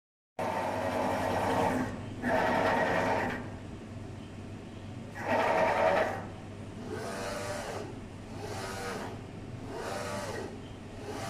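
UV6090 flatbed UV printer's print carriage shuttling back and forth as it prints, its drive motor whining up and falling in pitch on each pass. Three louder passes in the first six seconds, then regular passes about every second and a half, over a steady low machine hum.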